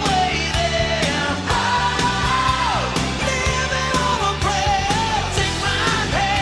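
Rock music with a sung vocal line over a steady beat.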